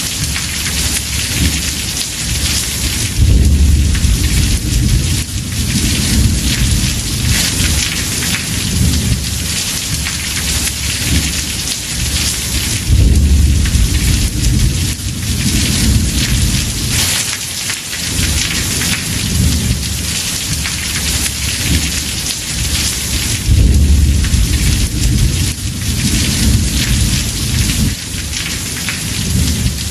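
Heavy rain drumming on a house roof in a steady dense hiss, with rolling thunder underneath. The thunder swells into deep rumbles three times, about ten seconds apart.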